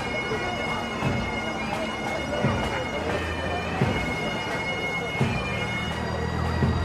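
Bagpipes playing, the chanter's held notes over a steady drone, with a few sharp beats.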